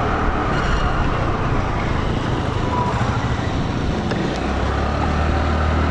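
Wind rushing over a lavalier microphone clipped inside a motorcycle helmet with the visor raised, at about 45–50 km/h, over the low rumble of the motorcycle and road. The low rumble grows stronger about four seconds in.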